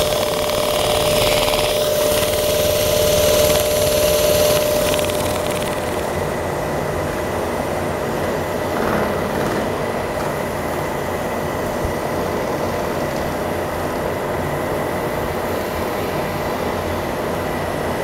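Drill press running steadily with 80-grit sandpaper held against a spinning metal vacuum-switch fitting, sanding its end down to a taper so a hose will fit. The sanding hiss is strongest for the first five seconds or so, then eases to a steady hum.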